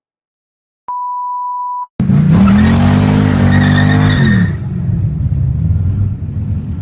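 A single steady electronic beep lasting about a second, then a car engine starts loudly about two seconds in: it revs up and back down over about two seconds amid a loud hiss, then keeps running with a steady low rumble.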